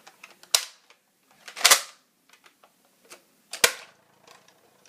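Plastic mechanism of a spring-powered Nerf blaster being worked by hand: a sharp clack about half a second in, a longer scraping snap a little later, and another sharp clack past the middle, with small ticks between. It is a sound called annoying.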